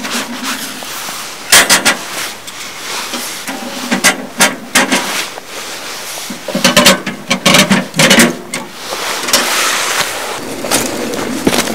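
Split firewood being stacked into a small metal wood stove: a string of separate knocks and clatters of log against log and against the metal firebox, with rustling between them.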